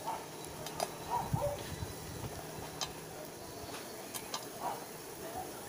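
Faint clicks and soft handling sounds as a rubber anode cap is pressed down over a CRT picture tube's high-voltage anode connector to lock its clip in place, over a steady low hum.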